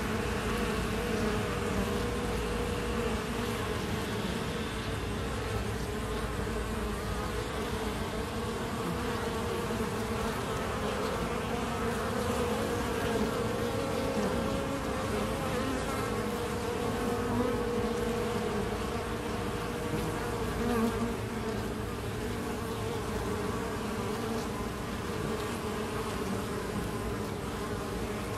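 Steady, continuous buzzing of many honeybees flying in and out at a wooden hive entrance, during heavy foraging traffic as the colony brings in pollen.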